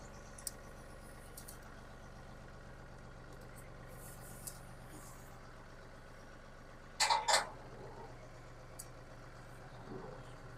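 John Deere compact tractor's diesel engine idling steadily. About seven seconds in come two short, sharp, loud sounds in quick succession.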